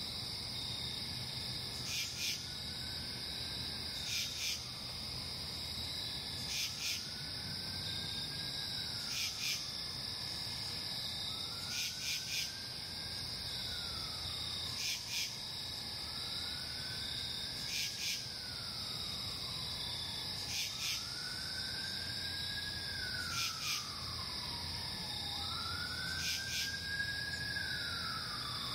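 Steady high-pitched chirring of night insects. Over it, a pair of sharp clicks comes every two to three seconds, and a tone rises, holds and slides down about every three seconds, growing louder near the end.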